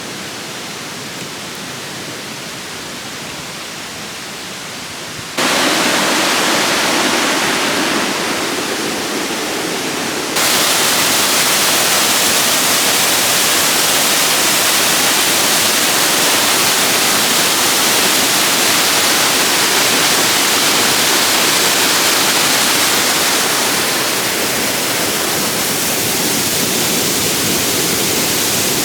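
Waterfall: a steady, loud rush of falling water that jumps louder abruptly about five seconds in and again about ten seconds in.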